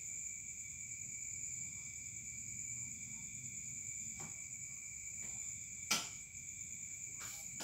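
Crickets trilling steadily in a high, continuous drone over a faint low hum. A single sharp click sounds about six seconds in.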